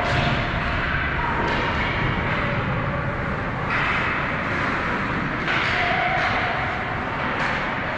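Ice hockey game sound in a rink: a steady wash of noise with surges of skate scraping about four and six seconds in, and faint distant voices.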